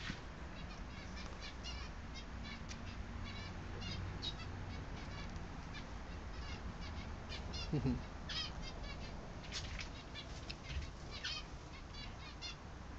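Small aviary birds chirping, many short high calls in quick succession, with one louder, lower falling sound about eight seconds in.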